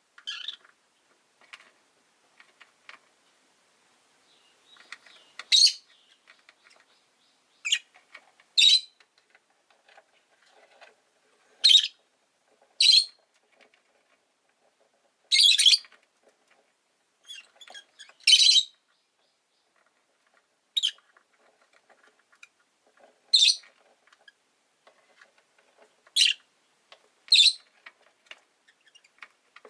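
Rosy-faced lovebirds calling: a dozen or so short, sharp, high-pitched chirps spaced a second or two apart, with softer chatter in between.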